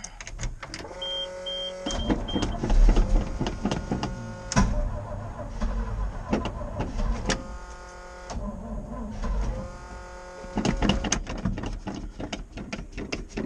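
1988 GMC 6000 truck's starter cranking the engine in several long tries separated by short pauses, the engine turning over without catching: a hard start on a jump booster. Two short high beeps sound about a second in.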